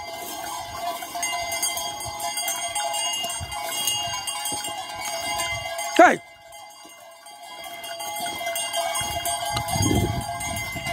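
Many bells on a flock of sheep ringing steadily as the animals move. A herder's single short shout, "hai", cuts in about six seconds in, and a low rumble comes near the end.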